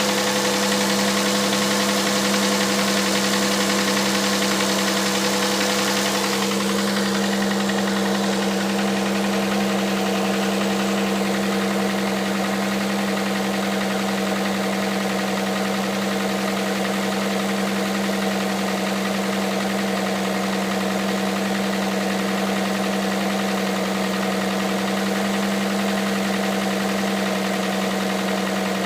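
Hyundai Santa Fe's 2.7-litre G6EA V6 idling cold, with the knock that this engine makes from cold. A high hiss dies away about six seconds in and the idle runs on steadily.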